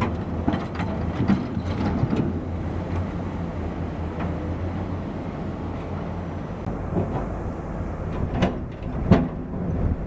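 Heavy construction machinery running with a steady low engine hum, with scattered metallic clicks and clanks and two sharper knocks near the end.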